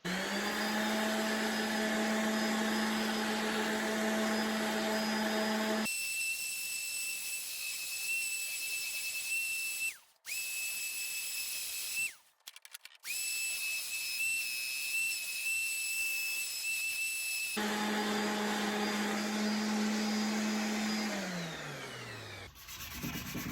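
Electric sander running with a steady whine while polishing the steel faces of a hammer head, its tone shifting partway through and cutting out briefly twice. Near the end the motor is switched off and winds down with a falling pitch.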